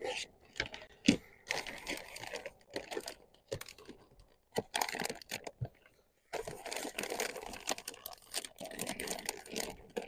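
Rustling and crinkling of plastic food packaging, with light clicks and taps, as food is sorted into plastic storage containers. The sound comes in irregular bursts with short pauses, a longer one about four seconds in.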